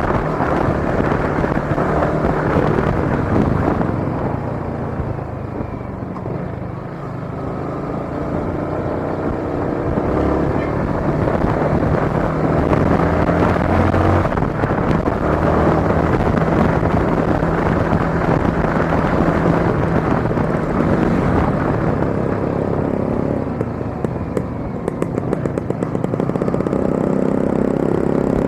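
Yamaha Sniper 155 motorcycle on the move, its engine running and changing speed over wind and road noise. Near the end it eases to a lower, even beat.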